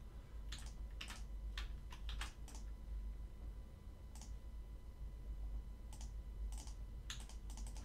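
Irregular clicks and keystrokes on a computer keyboard and mouse, about a dozen in all and bunched in the first two and a half seconds and the last two, over a low steady hum.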